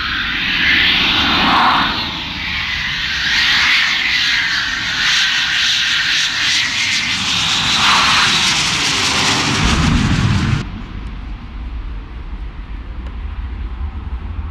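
Eurofighter Typhoon's twin EJ200 jet engines in afterburner, a loud crackling jet noise with the pitch sweeping up and down as the fighter turns overhead. It cuts off suddenly about ten seconds in, leaving a quieter low rumble of the jet on its landing approach.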